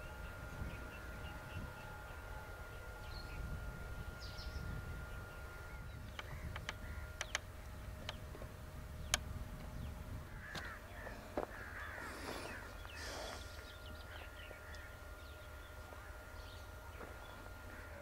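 Rural outdoor ambience: a low wind rumble and a faint steady whine, with a few sharp clicks midway and bird calls about ten to thirteen seconds in.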